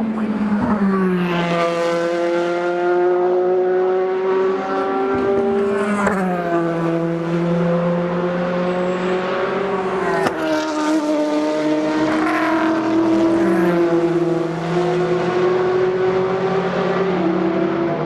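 Race car engines running at high revs and accelerating, the pitch climbing steadily and then dropping sharply at gear upshifts about six, twelve and seventeen seconds in.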